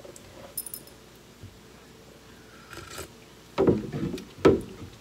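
Wooden spoon stirring thick barbecue sauce in a large stainless steel stockpot, with faint light clinks of a metal spoon. Two short, louder thumps come near the end.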